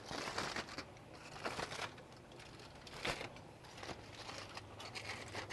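Aluminium foil crinkling and rustling in the hands as it is spread and folded over a tray, with a few faint irregular crackles.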